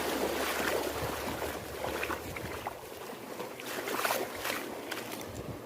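Sea waves washing at the shoreline, with a rising and falling rush, and a few small clicks and knocks over it.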